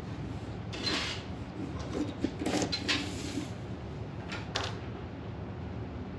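Drawing tool scratching across paper in a few short strokes: one about a second in, a cluster between two and three and a half seconds, and a last one near four and a half seconds, over a low steady hum.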